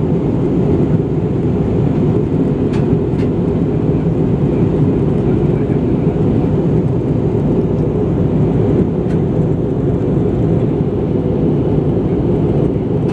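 Cabin noise inside an Airbus A320-214 on descent: a steady, low rush of airflow and engine noise, with a few faint clicks.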